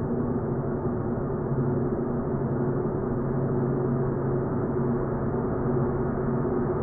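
Cinematic drone sound effect: a steady, low, dark sustained tone with several held pitches under a rough texture, with no hits or changes.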